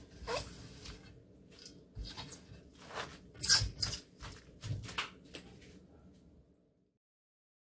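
Hands tossing and mixing seasoned kimchi of young napa cabbage and chives in a stainless steel bowl: wet, squishy rustles and slaps in irregular strokes. The sound cuts off abruptly near the end.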